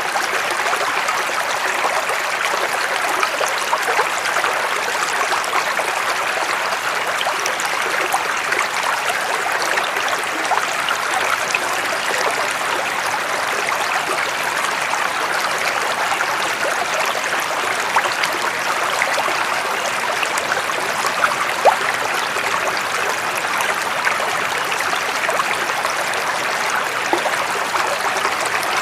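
Running water flowing steadily, like a stream: a continuous even rush flecked with small splashes, with no change over the whole stretch.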